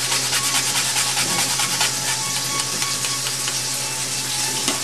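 Wedges of young onion frying in a pan with a little oil: a steady sizzling hiss with fine crackles, over a steady low hum.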